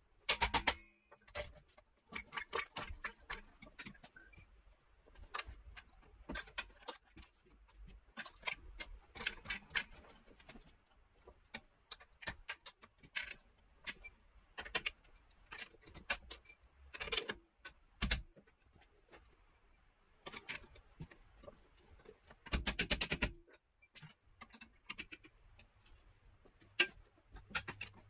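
Irregular metallic clicks and clinks of hand tools at work on the car's suspension. About 22 seconds in there is a dense run of rapid clicks lasting about a second.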